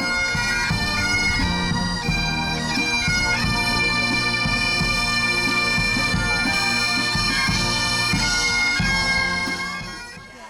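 Pipe band playing: bagpipes sounding a tune over their steady drone, with drums beating underneath. The music fades out near the end.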